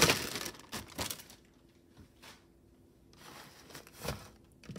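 Clear plastic zip-top bag crinkling as it is handled, loudest at the start, followed by a few light clicks and taps spread through the rest.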